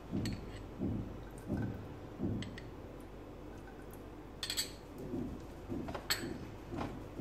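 A spatula stirring and scraping cocoa paste around a nonstick pan, in soft strokes a little under twice a second. It goes quieter midway, then gives a few sharp clicks against the pan about four and a half and six seconds in.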